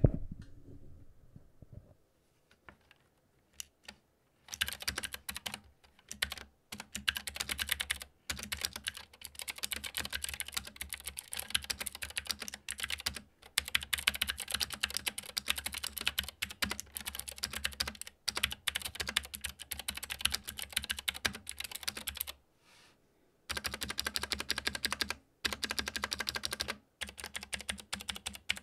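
Typing on an Epomaker GK96S mechanical keyboard with KAT-profile keycaps, picked up close: a rapid clicky clatter of keystrokes that starts about four seconds in, with a brief pause near the end.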